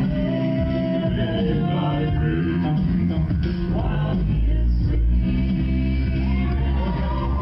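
A cappella vocal group singing in harmony, with a very deep bass voice holding low notes underneath; the bass grows heavier about halfway through.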